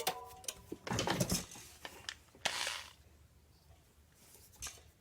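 Light clicks, knocks and clatter of small hard objects being handled at a workbench, with a brief squeak near the start; the sounds die away after about three seconds.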